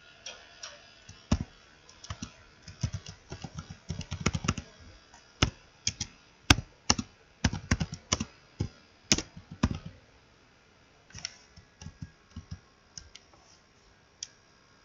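Typing on a computer keyboard: a rapid, irregular run of keystrokes for most of the first ten seconds, then a few scattered keystrokes.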